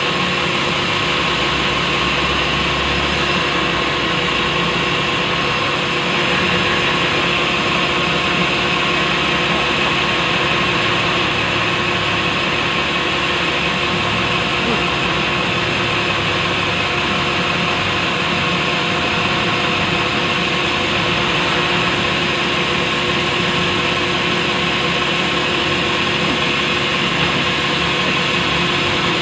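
Sawmill band saw running steadily and cutting through a large log of soft wood: an even, continuous machine noise with a constant hum.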